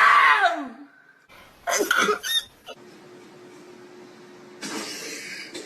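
A person's exaggerated sneeze: a loud drawn-out vocal wind-up that slides down in pitch, then a couple of short sharp bursts about two seconds in. A faint steady hum follows, and a soft hiss comes in near the end.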